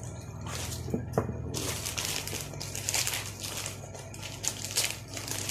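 A package's wrapping being torn and pulled open by hand, crinkling and rustling in a string of irregular strokes, with a couple of short clicks about a second in.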